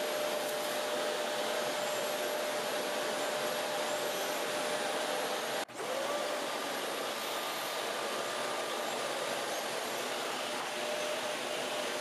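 Shark Rotator Professional Lift-Away (NV501) upright vacuum running steadily with its straight suction nozzle on a hardwood floor, sucking up flour: a steady airflow rush with a thin whine, broken by a very short dropout about halfway through.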